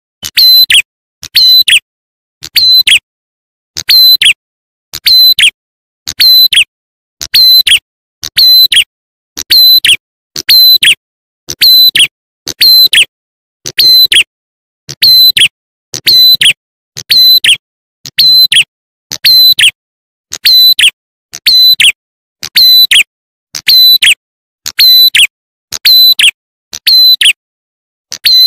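Looped bird-lure recording of the prenjak atas (ciblek klawu) call: a loud, high, sharp call repeated evenly about once every 1.2 seconds, each note ending in a quick downward sweep.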